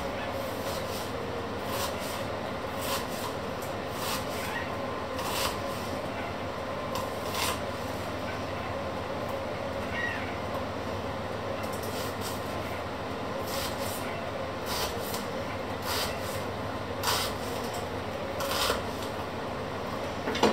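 Kitchen knife slicing an onion on a wooden cutting board: sharp cuts spaced a second or so apart, over a steady background rumble, with a louder knock near the end.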